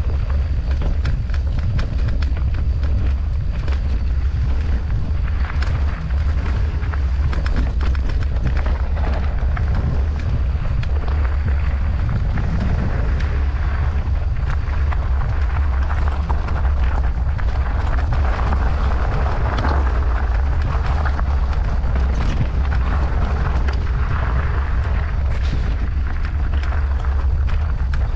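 A mountain bike rolling down a rough trail, with tyre noise and a constant run of clicks and rattles from the bike. Wind buffets the camera microphone as a heavy low rumble.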